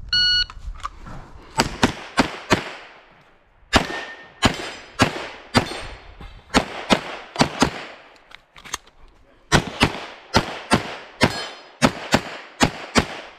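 A shot timer's start beep, then a semi-automatic pistol fired in rapid pairs, about two dozen shots in all, with a brief pause after the first few.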